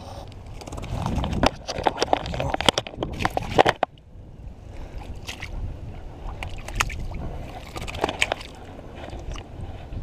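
Splashing and sloshing in ankle-deep water as a peacock bass is landed by hand: a run of sharp splashes in the first few seconds, then softer, scattered sloshing.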